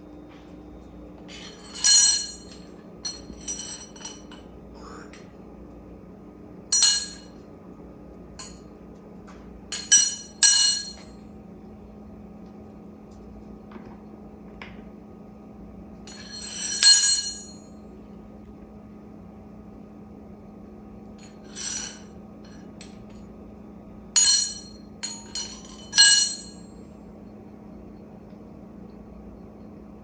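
A metal spoon clinking on a ceramic tile floor as an African grey parrot picks it up, taps and drops it: about a dozen irregular clinks, each ringing briefly.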